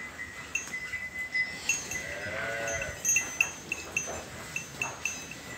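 A single drawn-out farm-animal call about two seconds in, lasting about a second and rising then falling in pitch, over a steady run of high chiming clinks about three a second.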